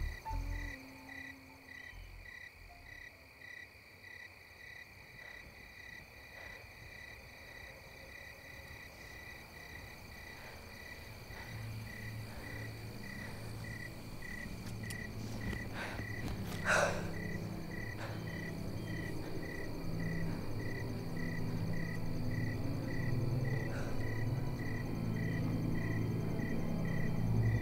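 Crickets chirping steadily at about two chirps a second. A low drone swells in over the second half and grows louder toward the end, with one brief sharp sound about two-thirds of the way through.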